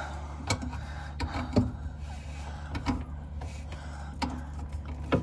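Irregular knocks and clicks of hands and tools handling pipe fittings under a sink, about six in all, the loudest about a second and a half in and near the end, over a steady low hum.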